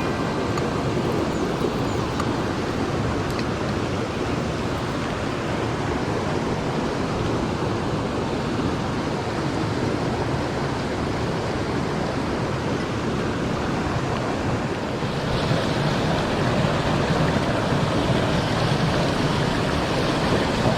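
Mountain stream water rushing over rocks, a steady full noise that grows a little louder and brighter about three-quarters of the way through.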